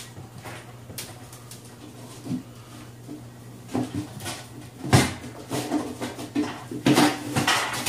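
Scattered knocks and rustles of packing being pulled out from inside a metal barrel cooker, the loudest knock about five seconds in and a quick run of them near the end.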